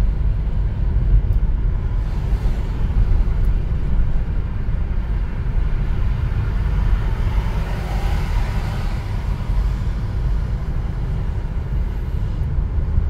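Car driving along a highway, heard from inside the cabin: a steady low rumble of engine and tyres on the road, with a wider rush of noise that swells and fades about eight seconds in.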